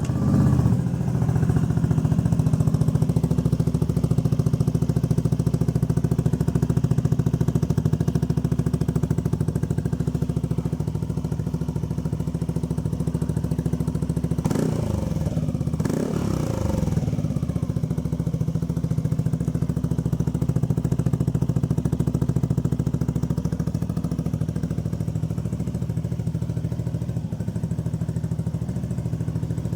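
Yamaha Aerox scooter's single-cylinder engine through an aftermarket SC Project exhaust fitted with a silencer insert, starting and settling into a steady idle. About halfway through it is blipped twice in quick succession, the pitch rising and falling each time, before it drops back to idle.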